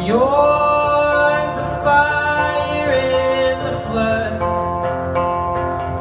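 Live solo performance: a man singing long held notes that slide up at the start, over a strummed acoustic guitar.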